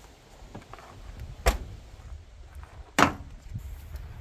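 Two sharp knocks, about a second and a half apart.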